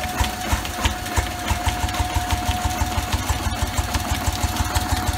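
Antique Bessemer stationary engine running steadily with a rapid, even exhaust beat while belt-driving a dynamo under electrical load, with a faint steady whine above it.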